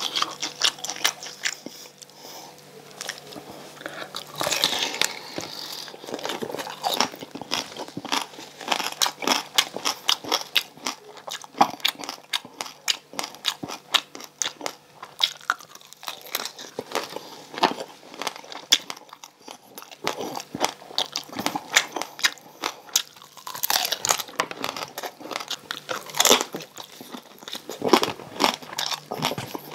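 A person biting and chewing crispy deep-fried pork belly (bagnet), its crackling skin crunching in a dense run of sharp crunches, with louder bites now and then.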